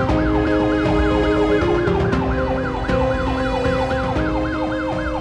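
Police car siren wailing rapidly up and down, about three cycles a second, over background music with held notes that change every second or so.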